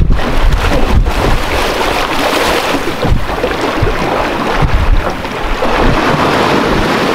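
Gusty wind buffeting the microphone with a heavy low rumble, over water splashing and sloshing.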